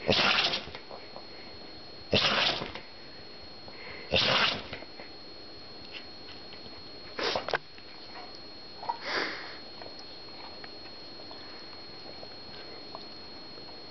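Glen of Imaal Terrier sneezing five times in a fit, the first three about two seconds apart and the last two weaker, set off by black pepper in the air.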